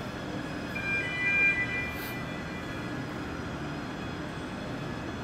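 Steady drive hum of a remote-controlled self-propelled modular transporter crawling across a factory floor under a heavy load. About a second in, a short high electronic tone sounds for about a second over the hum.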